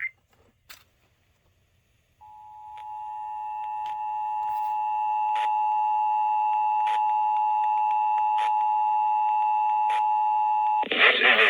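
Emergency Alert System attention signal: the steady two-tone alert comes in about two seconds in, swells up over a few seconds, holds level, and cuts off just before the end as the test announcement begins.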